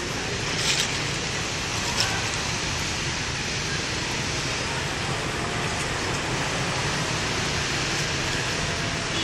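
Steady outdoor background noise, an even hiss over a low rumble, with two short sharp clicks about a second and two seconds in.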